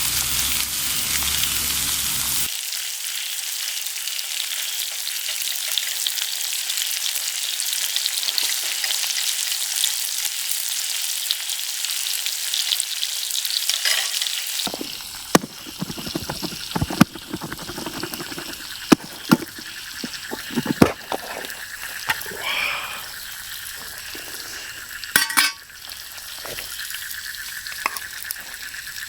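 Food sizzling as it fries in a pan, a dense steady hiss. About halfway through the sizzle falls away and a run of sharp clicks and knocks follows, several of them loud.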